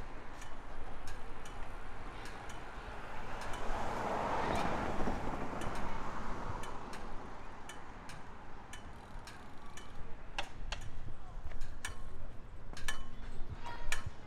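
Pedestrian crossing push-button locator tone ticking slowly, about once a second, with a passing vehicle swelling and fading around four to six seconds in.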